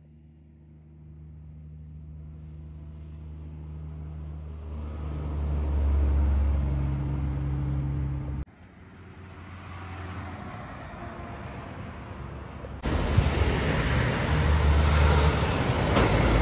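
Diesel engines of Kenworth cabover trucks approaching and passing, in three short clips: a steady low engine note growing louder as the first truck nears, an abrupt cut about 8 seconds in to a second truck building up again, and a second abrupt cut near 13 seconds to a much louder, close pass with heavy engine and tyre noise.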